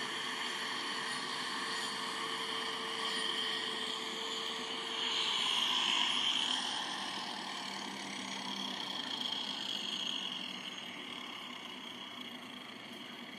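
Electric angle grinder with an abrasive disc running steadily and touched lightly against a cow's hoof horn to clean the claw surface before a hoof block is glued on. It is loudest about halfway through, then fades away over the last few seconds.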